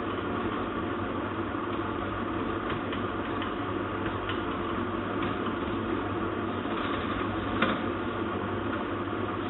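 Steady low hum and hiss with a few faint, scattered light clicks; the clearest click comes about three-quarters of the way through.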